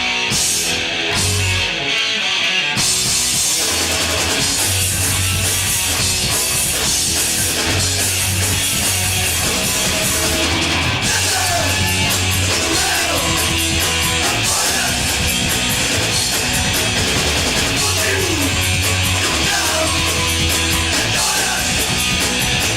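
Punk rock band playing live with distorted guitars, bass and drums; after a few stop-start hits, the full band comes in about three seconds in and plays on steadily.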